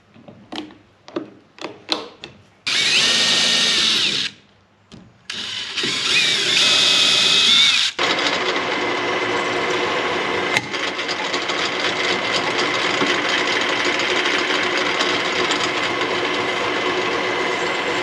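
A series of sharp clicks, then two short loud bursts of drilling with a bending high whine, then a pillar drill running steadily as its bit drills holes through a thin aluminium plate.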